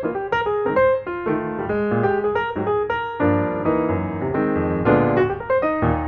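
Background piano music: a steady run of notes with chords in the low register.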